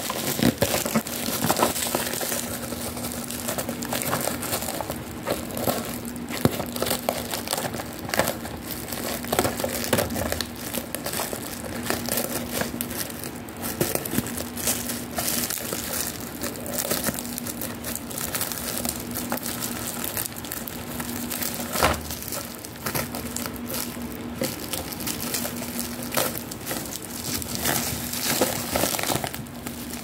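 Clear plastic wrap crinkling and crackling continuously as it is handled and cut open with scissors, with many sharp clicks and snaps. A faint steady hum runs underneath.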